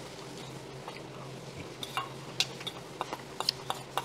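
Metal spoon scraping and clinking in a stainless steel bowl as rice is scooped and mixed, with several sharp clinks in the second half over a steady low room hum.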